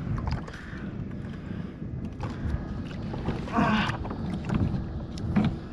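Wind buffeting the microphone and water slapping against a kayak hull, with scattered small clicks and knocks of handling. About three and a half seconds in, a brief wavering pitched sound rises above it.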